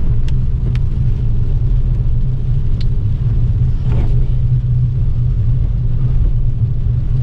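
Steady low road and engine rumble of a car driving, heard from inside the cabin, with a few light ticks in the first three seconds.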